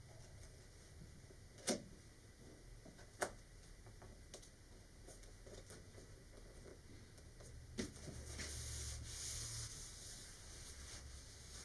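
Quiet handling of a plastic model part being glued down: a few sharp taps, then about two seconds of rubbing and rustling as a paper towel is pressed and wiped over it.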